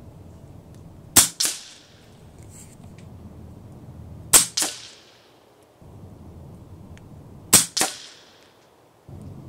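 Three shots from an RTI Arms Priest 2 PCP air rifle, about three seconds apart. Each is a sharp crack followed a quarter-second later by a second, fainter crack.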